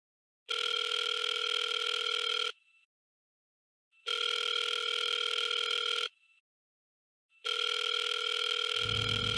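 Telephone ringing: three rings of about two seconds each, separated by short silences, an incoming call that is answered right after.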